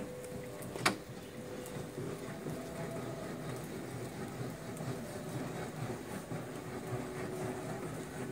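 Two sharp knocks about a second apart as things are handled on the top of the table saw, followed by a low steady background noise. The saw itself is not running.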